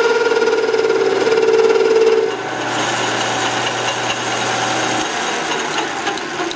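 Metal lathe running while a turning tool cuts down the outside diameter of metal bar stock on a mandrel. A steady pitched whine gives way about two seconds in to a quieter, noisier sound, and the motor's low hum stops about five seconds in.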